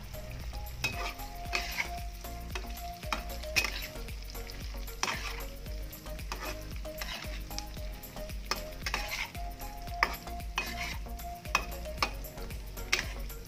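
Smoked beef in chili sambal and plenty of oil frying in a wok, sizzling steadily, while a metal spatula stirs it with repeated scrapes and clinks against the pan.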